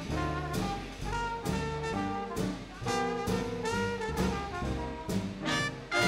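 Live swing big band playing, with a solo trombone carrying the melody over the rhythm section. The full band comes in louder just before the end.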